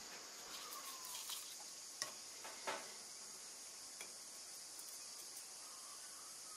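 Faint steady hiss with a few light clicks and taps, the loudest about two seconds in and just under three seconds in, as a soldering iron and solder wire are handled over an alternator rotor's slip ring. Faint short chirps come and go in the background.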